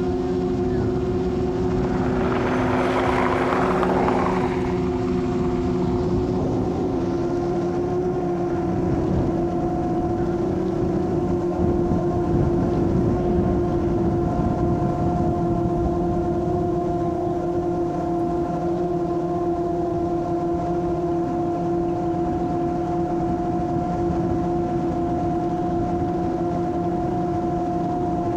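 FPV quadcopter's motors and two-blade propellers in fast forward flight: a steady hum made of several held tones. A short rush of hiss comes about two to four seconds in.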